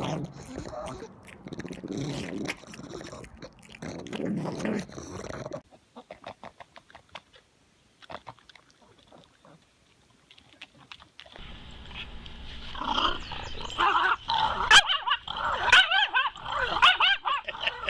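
Pug whimpering and yipping in high, wavering whines, loudest over the last six seconds or so.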